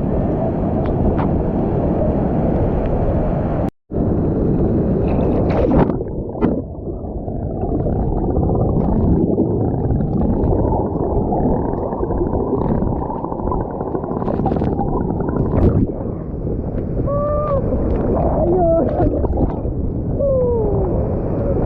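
Rushing water of a waterfall stream, a loud, steady, dull rush, with faint wavering voices calling over it near the end and a brief gap in the sound about four seconds in.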